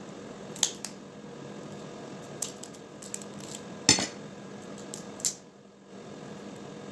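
Six or so sharp clicks and clacks: a metal knife and spoon knocking on a dish, and crab-leg shell being broken and picked apart by hand. The loudest comes just before four seconds in, over a steady low hum.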